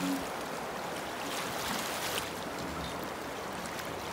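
River current rushing and splashing around a landing net held in the water beside a boat, with a few brief splashes.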